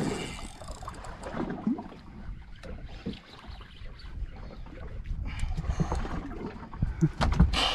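Water and wind noise aboard a small fishing boat, with scattered knocks and handling sounds; a short louder rush of noise near the end.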